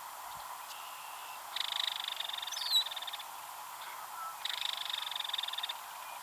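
Belted kingfisher giving its dry, rapid rattle call twice, each rattle a quick run of clicks lasting a little over a second.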